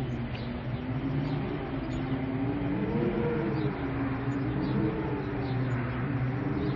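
Eerie howling wind with rain: a wavering, moaning tone rises about three seconds in and sinks back, over a steady hiss of rain.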